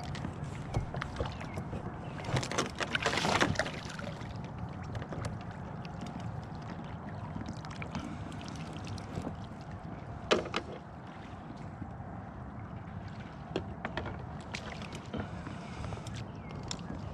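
Ambient sound aboard a small boat on the water: a steady low rumble with scattered knocks and clicks. There is a louder, noisy patch of clattering about two and a half to three and a half seconds in, and one sharp knock about ten seconds in.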